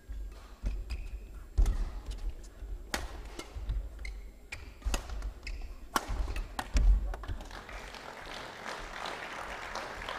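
Badminton rally: sharp racket strikes on the shuttlecock about once a second, with the players' footfalls and lunges thudding on the court floor. The strikes stop about seven seconds in as the point ends, and the crowd applauds.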